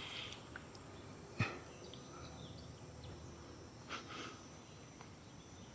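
Faint background noise with a steady high-pitched drone and a single sharp click about a second and a half in, followed by a couple of softer knocks near the end.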